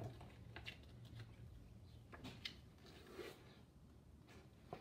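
Faint rustling and a few light clicks of a paper CD booklet being handled, with near silence between them.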